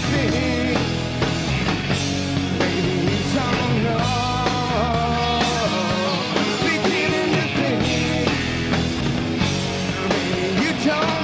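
Live rock band playing: electric guitars, bass and drums at full volume, with bending pitched lines over the top.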